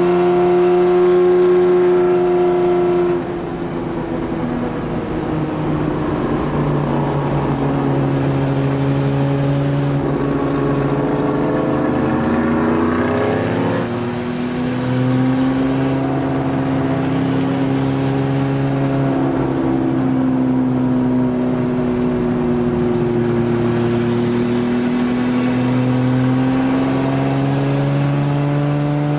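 1963 Jaguar E-Type's straight-six racing engine heard from inside the cockpit at speed, pulling hard. About three seconds in the pitch drops sharply as the driver lifts or shifts, then the revs climb and fall again through the corners.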